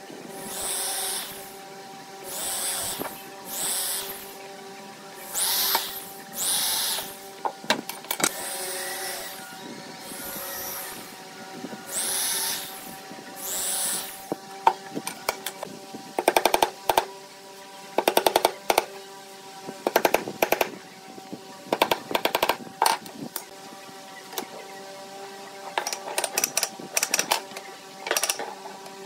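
Cordless drill boring a row of holes in a wooden strip, each hole a short whir that spins up and down, repeated every second or two. Then a hammer tapping nails into wooden boards in quick runs of light blows.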